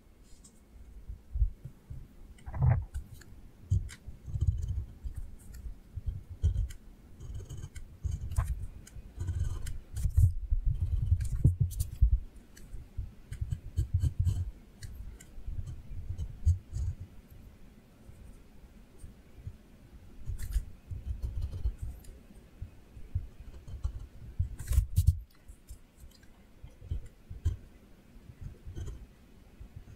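Pen drawing on paper: irregular short scratches and ticks from the nib, with low soft thuds as the drawing hand rubs and bumps against the sheet and desk.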